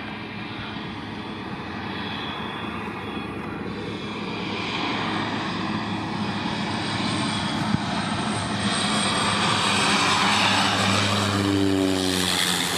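Cessna 208B Grand Caravan EX floatplane's turboprop engine and propeller, a steady drone growing louder as the plane approaches. Near the end, as it passes close by, the pitch falls.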